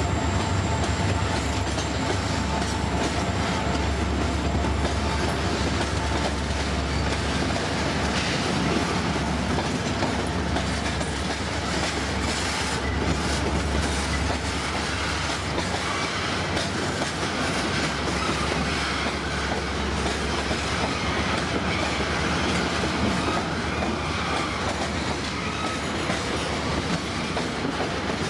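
Freight train wagons rolling past: a steady rumble of steel wheels on rail with a rhythmic clatter. A faint wheel squeal fades out about six seconds in.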